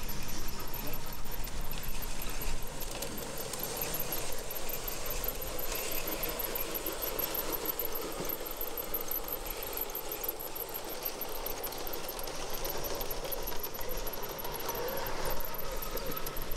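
LGB G-scale model trains running on an outdoor garden railway: a steady hum and rattle of motors and wheels on the track, with a wavering squeal and a fast, faint, high ticking throughout.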